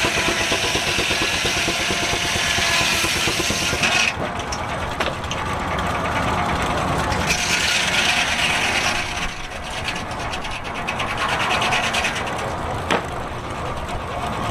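Circular headsaw of a steam-powered portable sawmill cutting through a log, belt-driven by a Case steam traction engine working under load. The cut is loudest over the first four seconds, breaks off sharply, then comes back in shorter spells over the steady running of the engine and mill.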